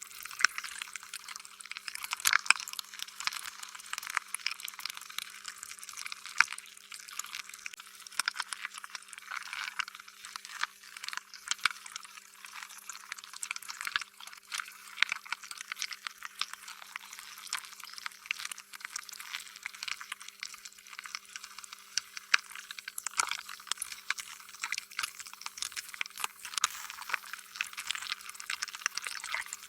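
Slime being squished and worked by hand: a steady, dense run of small wet clicks, pops and squelches in an irregular rhythm, thin and without any deep sound under it.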